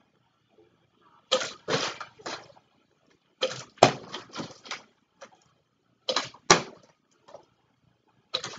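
Partly filled plastic water bottle being flipped and landing, hitting and toppling against a plastic jar of racquetballs: each try a quick cluster of hollow knocks and clatters, four tries about two seconds apart.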